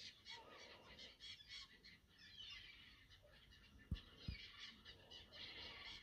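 Faint birds chirping and calling in quick, repeated short notes. Two soft thumps about four seconds in.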